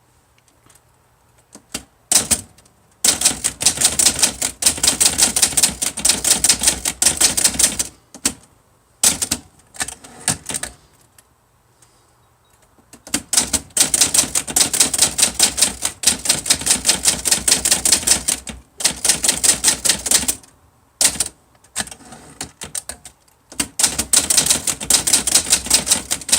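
Early-1960s Olivetti-Underwood Studio 44 manual typewriter being typed on in fast, steady runs of key strikes, broken by a few short pauses of a second or two.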